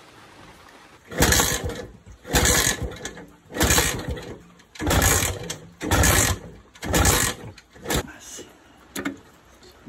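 Vintage Iso Moto two-stroke engine being kicked over again and again, about six kicks a little over a second apart, each giving a short burst of engine noise without it catching and running. The failed start is down to a very dirty carburettor.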